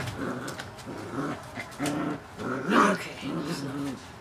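Puppies growling and whimpering in play as they tussle, a string of short growls, with one louder yelp just under three seconds in.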